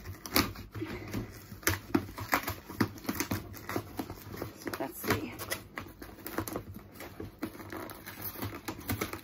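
A cardboard parcel box being opened by hand: irregular clicks, scrapes and rustles of cardboard flaps, tape and packaging.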